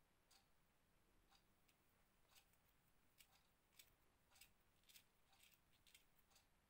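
Near silence with faint, irregular light clicks, about one or two a second, a few a little louder in the second half: a crochet hook and seed beads being worked in fine bead crochet lace.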